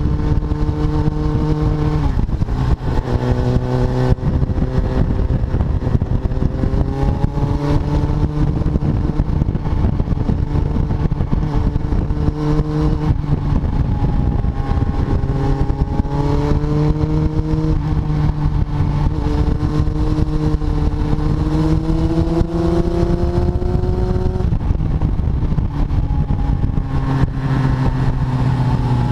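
Kawasaki ZX-7R's inline-four engine pulling hard on track, heard from a camera on the bike with a rush of wind noise; the revs climb and then drop suddenly several times as the rider shifts gears and rolls the throttle.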